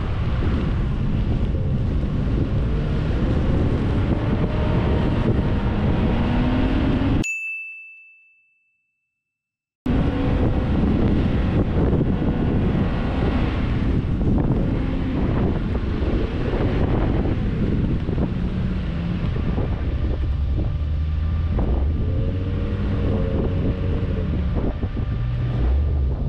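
Mitsubishi Pajero driving over soft sand dunes, with the engine revving up and down under dense rumble and wind buffeting the microphone. About seven seconds in, a single bright ding sounds, then the sound drops out for about two and a half seconds and comes back abruptly.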